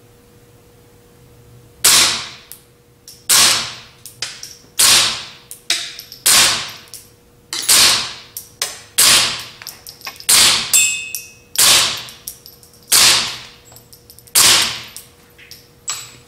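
Suppressed .22 LR shots from a Ruger 10/22 semi-automatic rifle fitted with a stainless steel 22Sparrow suppressor, fired dry with standard velocity ammunition. Ten shots start about two seconds in, one roughly every one and a half seconds, each a sharp crack with a short fading tail, with fainter clicks between them.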